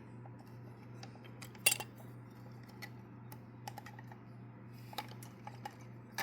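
Scattered light clicks and taps of a small plastic toy car being handled, with the sharpest click a little under two seconds in, over a steady low hum.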